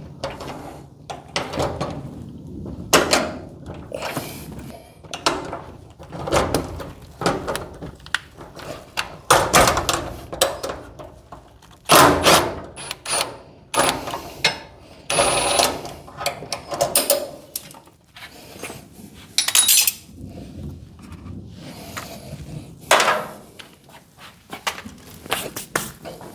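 Irregular metal knocks and clanks of hand tools on garage door hinge hardware, some ringing briefly, like hammer taps seating a hinge or roller.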